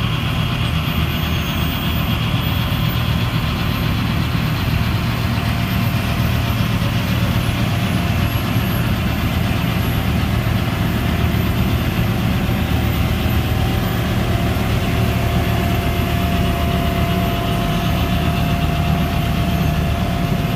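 Wheel loader with a front-mounted Snogo snow blower running steadily, its diesel engine droning under load as the blower chews through a snowbank and throws the snow into a dump truck. The truck's engine runs alongside.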